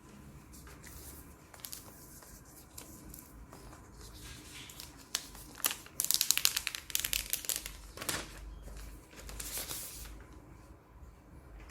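Packaging wrap being peeled and unwrapped: crinkling and tearing with scattered light handling clicks. A dense crinkling rustle between about six and eight seconds in is the loudest part.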